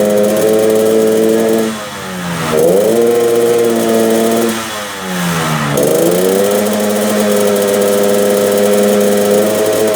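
Yamaha RX-King's two-stroke single-cylinder engine running at steady revs through a 'ngorok' exhaust, the throttle eased off twice, around two and five seconds in, so the revs sag and then climb back.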